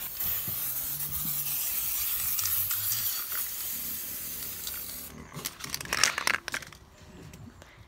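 Aerosol spray-paint can spraying in a steady hiss for about five seconds, then stopping. A few short, sharp knocks follow.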